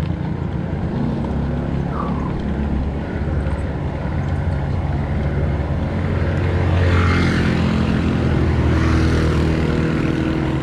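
Wind rushing over the camera microphone during a fast bicycle ride, a heavy rumble with a motor vehicle's engine running close by. It grows louder from about six seconds in, with a rising hiss around seven to nine seconds.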